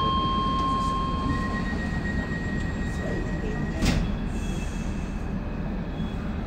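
Docklands Light Railway train braking into the adjacent platform: a low rumble with steady high-pitched wheel squeal, changing pitch about a second in. A single sharp knock about four seconds in, as the train comes to a stop.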